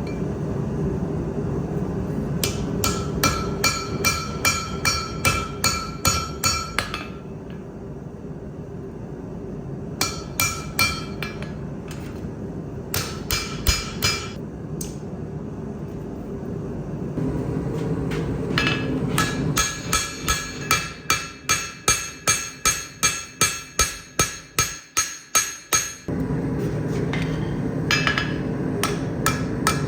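Hand hammer striking hot steel on an anvil while forging a chef knife blade, in runs of quick, even blows about three a second, each with a ringing note; the longest run comes in the second half. A steady low hum runs underneath.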